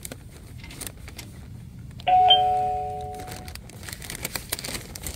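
A doorbell chime rings once about two seconds in: a bright higher note, then a lower one, dying away over about a second. Light clicks and knocks follow near the end.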